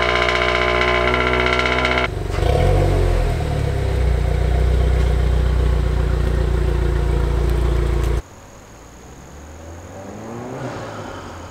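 Subaru WRX's 2.4-litre turbocharged flat-four with a Perrin intake, running at a steady fast idle just after start-up. About two seconds in it changes to a deeper, steady running sound. About eight seconds in this gives way abruptly to the much fainter sound of a car approaching from far off, slowly growing louder.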